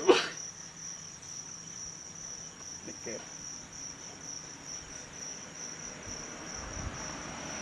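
Crickets chirping steadily in a continuous high, pulsing trill, with a short sharp loud sound right at the start.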